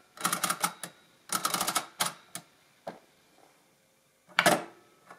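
Triumphator KA mechanical adding machine: two rapid runs of ratcheting clicks as the input levers are pulled down through the digits, then a few single clicks. A louder clunk comes just after four seconds in as the large button is pressed to clear the input.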